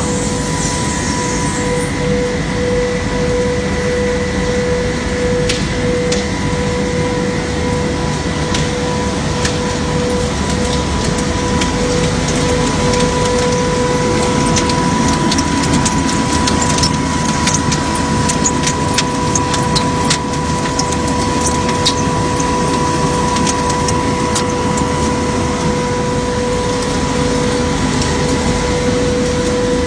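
Plastic film recycling machinery running: a screw press squeeze dryer and granulating line make a loud, steady mechanical din with a constant whine. Scattered light ticks come through the middle.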